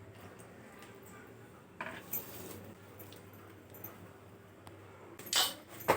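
Hands kneading stiff wheat-flour and fenugreek dough: soft handling noises with a few light clinks, the loudest cluster about five seconds in, over a low steady hum.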